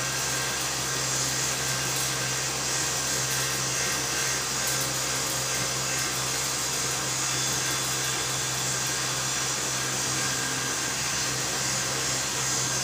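Cotton candy machine running: a steady whirring hum from its spinning head while floss is wound onto a stick.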